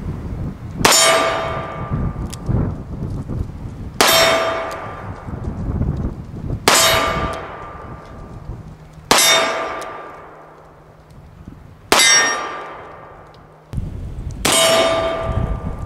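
1851 Navy black-powder cap-and-ball revolver firing six shots, about two and a half seconds apart, at a steel target. Each bang is followed at once by the steel plate clanging and ringing in a clear two-note tone that fades over a second or two: every shot is a hit on the steel.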